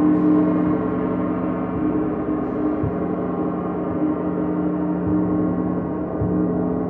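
A gong played continuously in a sound bath: a dense, sustained wash of ringing tones, renewed by soft strikes every couple of seconds.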